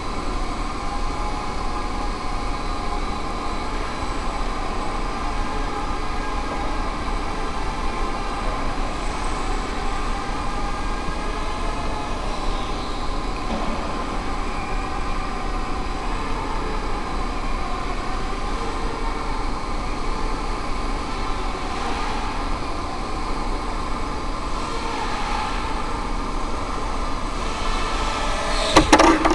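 Tiny Blade Nano QX FPV quadcopter's motors and propellers whining steadily in flight, heard from the onboard camera, with a brief loud knock near the end.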